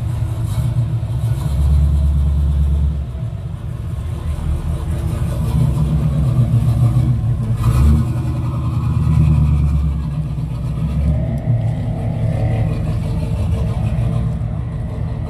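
Black second-generation Chevrolet Camaro's engine running as the car pulls away, a low rumble that swells louder with throttle about two seconds in and again around six to ten seconds in.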